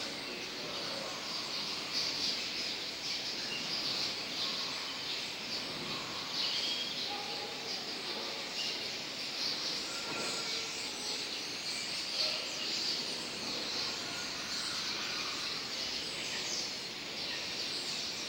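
Large flock of common starlings chattering together: a dense, unbroken din of many overlapping high chirps.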